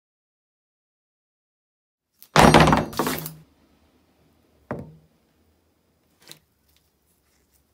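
A rusted steel ring wrench knocking onto a wooden workbench. First a loud thunk with a clatter lasting about a second, about two seconds in, then a shorter knock near five seconds and a faint click about six seconds in.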